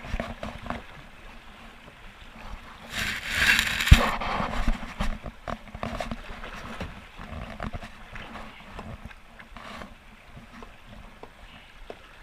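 Kayak on a river with water and wind noise on a GoPro microphone, small knocks and splashes throughout; about three seconds in a loud rush of noise swells for over a second, with a sharp knock near its end.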